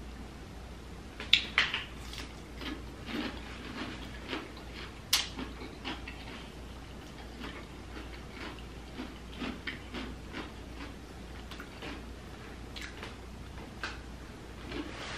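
Close-miked clicks and crackles of king crab legs being handled and their shells picked open with a tool and fingers. The sharpest snaps come about a second and a half in and again around five seconds in, followed by softer clicks and chewing.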